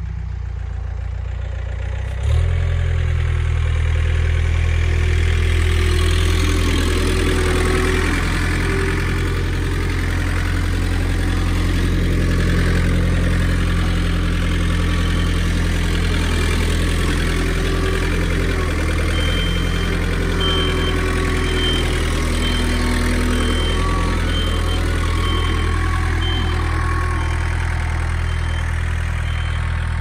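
Farm tractor engine running steadily, stepping up in speed and loudness about two seconds in as it works with a round hay bale. A high, short beep repeating about once a second joins past the halfway point.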